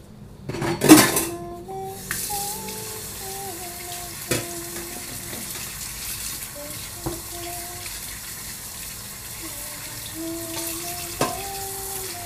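Tap water running into a stainless steel sink while dishes are washed by hand. It opens with a loud splash about a second in, then runs steadily, with a few sharp clinks of dishes against the sink.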